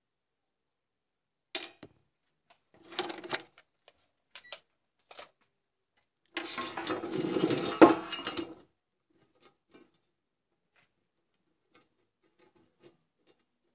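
Handling noise from a computer power supply's circuit board and wiring being moved about on a workbench: scattered clicks and rattles, then a longer clattering rustle lasting about two seconds, about halfway through, with one sharp click near its end.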